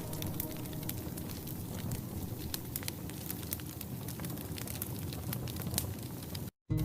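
Bonfire crackling, with many short, sharp pops scattered over a steady hiss. The sound cuts out completely for a moment near the end.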